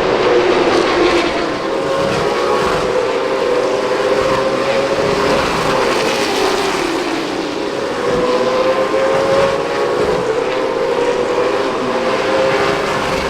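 A field of late model stock cars racing on a short oval, several engines heard at once, their pitch rising and falling as the cars pass.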